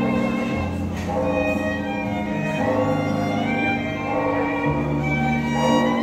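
Two violins playing a melody together in a live duet, with a low bass line of long held notes under them.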